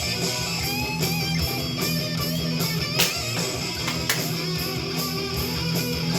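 Heavy metal music with strummed electric guitar over a steady beat, and two sharp clicks about three and four seconds in.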